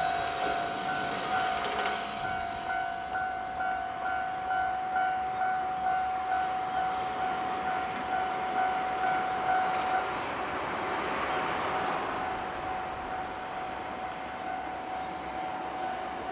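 Japanese level crossing warning alarm ringing in a steady repeating clang, about two strokes a second. From about ten seconds in, a rising rush of noise comes in as the approaching train nears, and the alarm fades under it.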